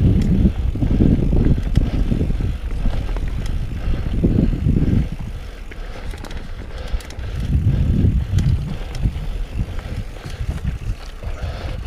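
Mountain bike ridden along a dirt trail, recorded on a GoPro: a low rumble of wind and tyre noise that swells and eases, with scattered small clicks and rattles from the bike.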